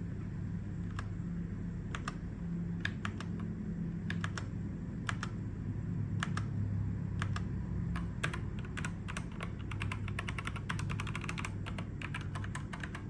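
Keys of a JEDEL KL150 mechanical keyboard being typed on: scattered single keystrokes, then a quick run of fast typing about ten seconds in, over a steady low hum.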